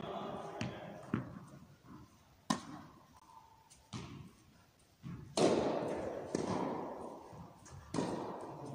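Tennis ball thuds, struck and bouncing, echoing around an indoor tennis hall: several sharp hits spaced a second or more apart, the loudest about five and a half seconds in.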